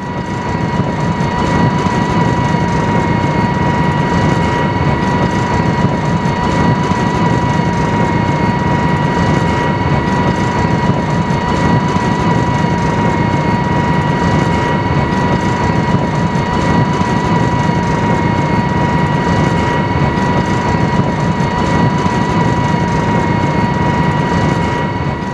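Military tank on the move: a steady, loud mechanical rumble with a constant high whine over it, fading in at the start and out near the end.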